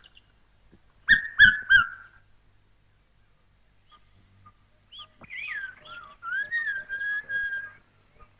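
Red-chested cuckoo giving its three-note 'piet-my-vrou' call once, about a second in: three loud whistled notes, each sliding slightly down. From about five seconds in, another bird's varied, fluty whistled song begins and keeps going.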